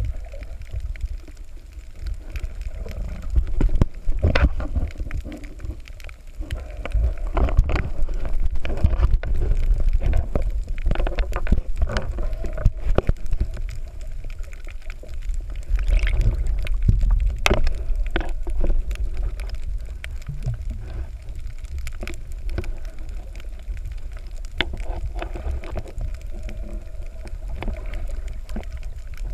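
Muffled underwater sound from a submerged camera moving over a reef: a low rumble of moving water with scattered clicks and crackles, louder through the middle.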